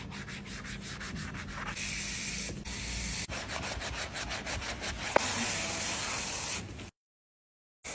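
A detailing brush scrubbing foam-covered car surfaces in quick back-and-forth strokes, giving a wet, bristly rubbing. It cuts out abruptly near the end.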